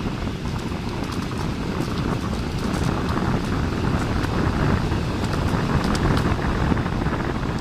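Wind rushing over the microphone with the rolling of wheels on asphalt while moving fast down a paved path, steady throughout, with a few faint ticks.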